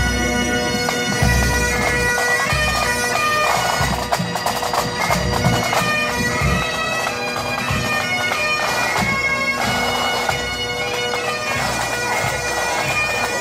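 Highland pipe band playing: bagpipes sound a tune over their steady drone, with bass drum beats underneath.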